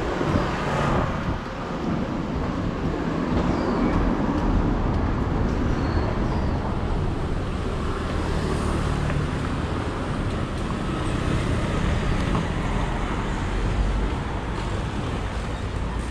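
City street traffic noise, a steady wash of passing cars and scooters, with low wind rumble on the microphone of a moving bicycle.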